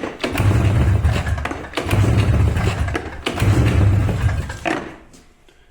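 Taiga 500 snowmobile's two-stroke twin engine being cranked over with its spark plugs out, for a compression test on the left cylinder. It turns over in four spells of about a second and a half each, with short breaks between, and stops shortly before the end.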